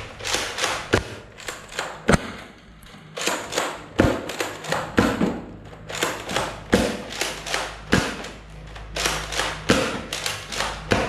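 X-Shot Chaos Orbit foam-ball blaster being loaded, cocked and fired: rapid plastic clicking and rattling, with about seven louder sharp thuds spread through.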